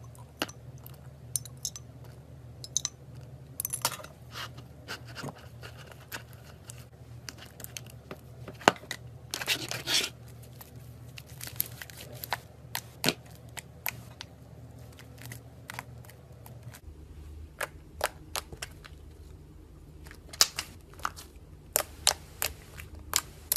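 Freshly borax-activated slime being stirred and squished by hand, with many short sharp clicks and crackles and a denser squelching stretch about nine seconds in, over a steady low hum.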